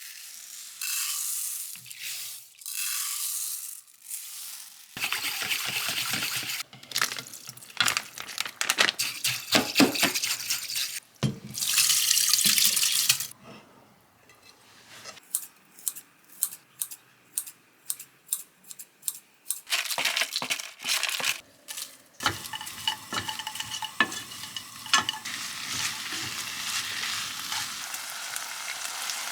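Home-kitchen cooking sounds: water running from a tap in bursts, then a run of even knife chops on a cutting board, about two a second. Near the end, food starts sizzling steadily in a hot pan.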